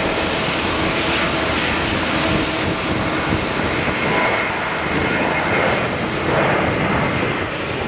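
Boeing 777-200's jet engines running as the airliner is pushed back: a steady rushing noise with a faint high whine in the second half.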